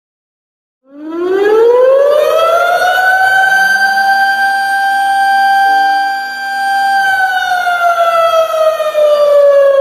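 Air raid siren wailing. It starts about a second in, rises in pitch for about three seconds, holds a steady high note, then slowly falls.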